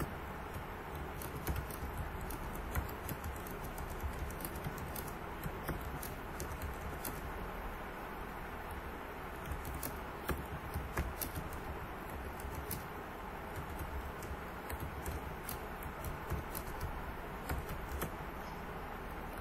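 Typing on a computer keyboard: irregular keystroke clicks in uneven runs, over a steady background hiss.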